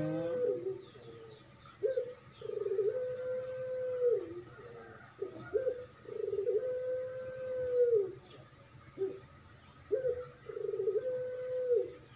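Barbary dove (puter) of the pelung type cooing, in the 'gugluk' style. Three calls about every four seconds, each a short opening note, a rolling wavering stretch, then a long held coo that drops at the end.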